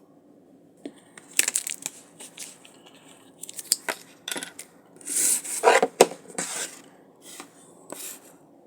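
Packaging for water test strips being torn open and handled: a run of crinkles, clicks and taps, with a longer, louder tearing rasp about five seconds in.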